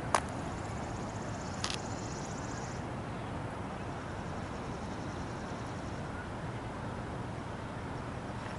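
Steady outdoor background noise, with two sharp clicks in the first two seconds.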